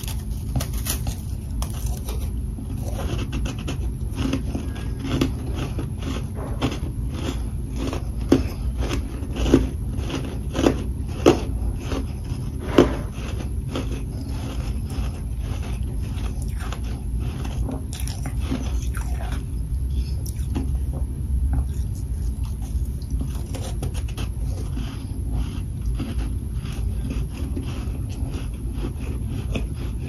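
Close-up biting and chewing of chunks of humidifier freezer frost: a quick run of crisp crunches, two or three a second, with a few louder bites in the middle, over a steady low hum.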